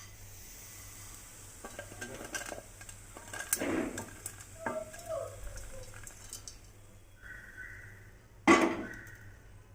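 Kitchen utensils scraping and clinking against a pan or dish, with one sharp clank about eight and a half seconds in.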